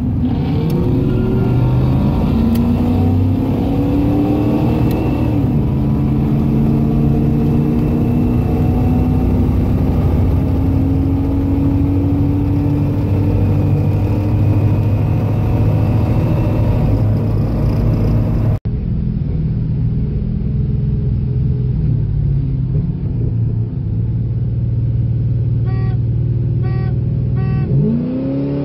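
Car engine under hard acceleration, heard from inside the car, its pitch climbing slowly as it pulls through a long gear. After a cut the engine runs more steadily, a few short electronic beeps sound near the end, and then it revs up sharply.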